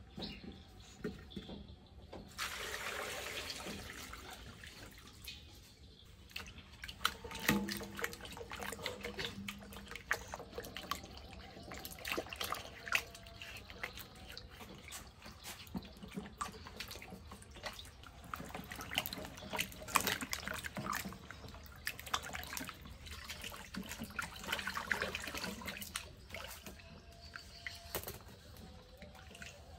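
Water sloshing and splashing in a metal wok as sweet potatoes are rubbed clean by hand, with irregular small splashes and drips as they are turned and lifted out. Near the start there is a steady rush of noise, as of water being poured in.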